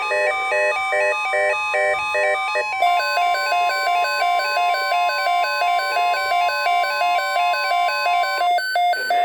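Midland weather radio's electronic alert alarm, a rapidly repeating pattern of beeping tones. About three seconds in, the steady single-pitch NOAA Weather Radio warning tone joins it, and both cut off near the end. Together they signal an incoming tornado watch alert.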